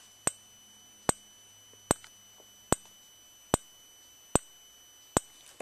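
Simplex 4904-9137 15-candela remote strobe flashing, each flash a sharp tick, seven in a row evenly spaced a little under a second apart, over a faint steady high-pitched whine.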